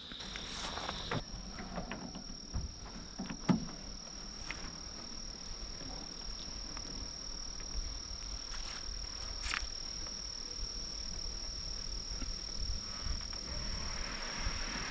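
Night insects trilling: one high, unbroken tone, with a second lower trill for the first second. A few faint knocks fall on top, the loudest about three and a half seconds in.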